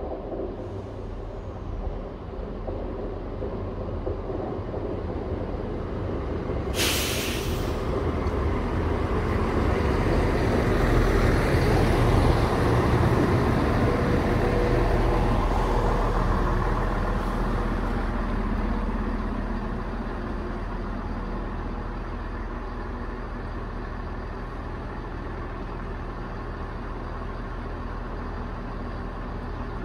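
Class 170 Turbostar diesel multiple unit running into the platform and stopping. Its engines and wheels grow louder to a peak, with a short sharp hiss of air about a quarter of the way in. Once it is at a stand its engines idle steadily.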